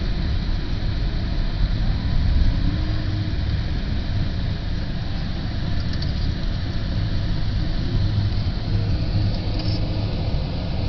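Car driving at low speed, with a steady low rumble of engine and tyre noise heard from inside the car.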